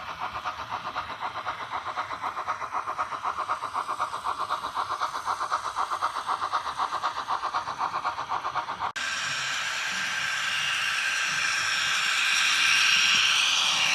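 Model train running on the layout track: a fast, even clatter of about five beats a second. About nine seconds in it gives way abruptly to a steadier, hissing running noise that swells and peaks near the end.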